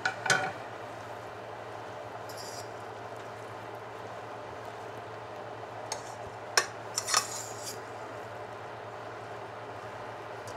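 A utensil clinking and scraping against a cooking pot as spaghetti is stirred and tossed with grated Parmesan. It comes as a few short clicks right at the start and a small cluster of them about six to seven seconds in, over a steady background hum.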